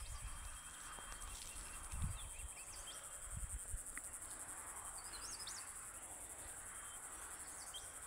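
Insects trilling steadily, a faint high pulsing drone, with a few faint bird chirps and whistles about halfway through and a soft low bump about two seconds in.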